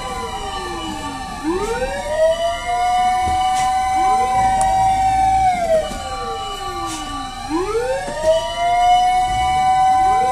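Fire truck sirens wailing, two of them out of step, each rising to a held high pitch and then sliding back down, over and over.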